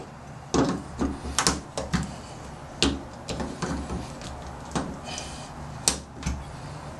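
Irregular metallic clicks and scrapes from a screwdriver working a cut-down key blank jammed in a Kwikset SmartKey deadbolt. The forced plug, its sliders defeated, is being turned back toward its home position.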